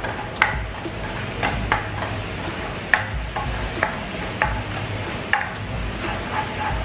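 Minced garlic and crushed red chili sizzling in oil in a nonstick wok, with a plastic spatula scraping and knocking against the pan about twice a second as it is stirred.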